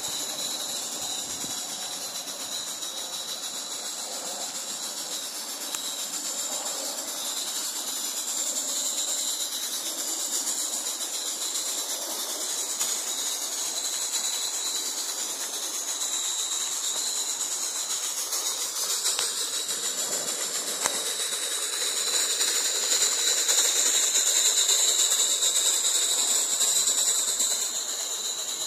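Edenhouse 'Ralph' coal-fired 16mm-scale live steam locomotive running along the track, with a steady hiss of steam. It gets louder for a few seconds before the end as it runs close by, then drops back.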